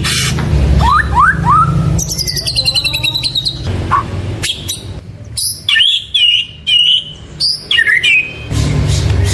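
White-rumped shama singing a varied song: quick rising whistles, a rapid high trill, then separate clear whistled phrases with short gaps, and buzzy repeated notes near the end.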